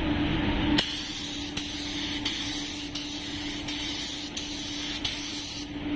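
Gravity-feed spray gun hissing as it sprays pearl white paint, starting about a second in and cutting off near the end. Underneath is the steady hum of the running paint booth.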